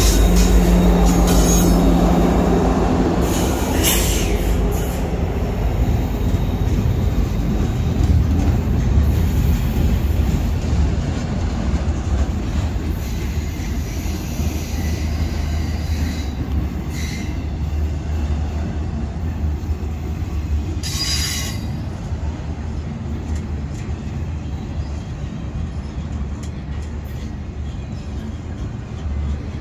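Norfolk Southern freight train passing close by. A diesel locomotive's steady engine drone fades within the first few seconds into the continuous rumble of double-stack intermodal well cars rolling past. A few brief, high wheel squeals cut through, the clearest about two-thirds of the way in.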